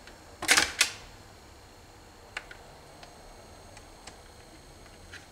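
Mechanical clicks from the automatic record changer of a Realistic Clarinette-102 turntable being switched to auto: two sharp clicks about half a second in, then a few faint ticks.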